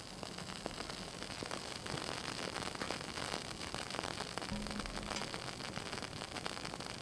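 A candle wick and a burning matchstick close up, giving a steady hiss with many faint, irregular crackles.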